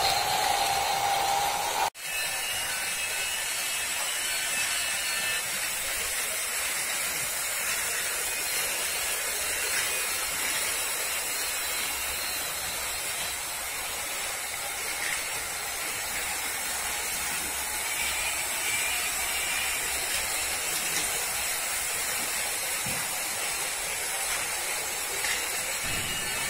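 Battery-powered toy trains running on plastic track: a steady mechanical whir and hiss of the small motors and wheels. The sound cuts out for an instant about two seconds in, then carries on unchanged.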